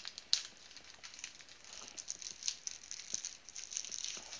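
Crinkling and rustling of thin plastic with many light clicks and one sharper click near the start: penny sleeves being handled.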